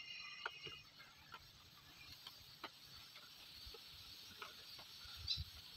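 Faint scattered clicks and ticks, with a short bird call at the start.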